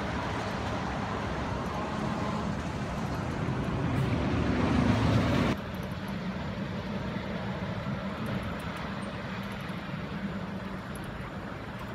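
Road traffic passing on a city road. One vehicle goes by close and grows louder until about five and a half seconds in, when the sound drops suddenly to a quieter, steady traffic noise.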